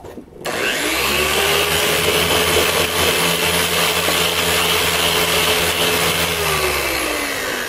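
Electric machine polisher running with its foam pad pressed into a bucket pad washer, pre-seasoning and cleaning the pad. The motor spins up about half a second in, runs steadily, then winds down near the end.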